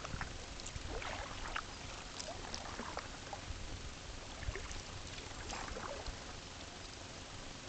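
Small splashes and drips of water around a kayak on a river, scattered and irregular over a steady water wash, with a low rumble underneath.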